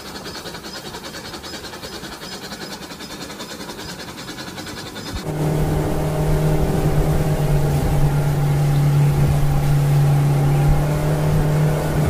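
A battery toy train running on its track. About five seconds in, this gives way abruptly to the steady, louder hum of a remote-control toy boat's small electric motor as the boat speeds across the water.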